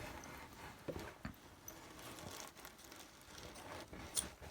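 Faint scattered clicks and taps of hands handling an opened iPhone 5c and its small parts, a few light ticks about a second in and one near the end.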